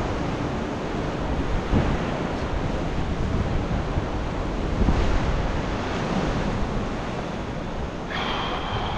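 Ocean surf surging and washing against a rock ledge, with wind buffeting the microphone as a steady low rumble.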